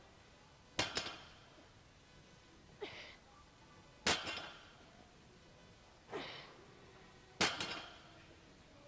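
Barbell deadlift reps: each rep has a short exhale that falls in pitch, then about a second later the loaded bar lands on the floor with a sharp clank. The pattern repeats about every three seconds, and the first landing comes as a quick double clank.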